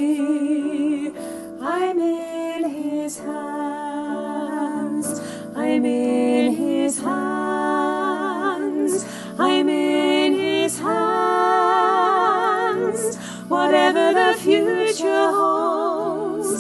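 Two women singing a slow worship song as a duet, holding long notes with a wide vibrato.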